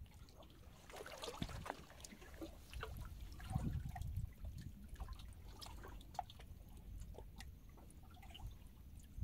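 Shallow water lapping against rocks, with small irregular drips, plinks and splashes over a low rumble.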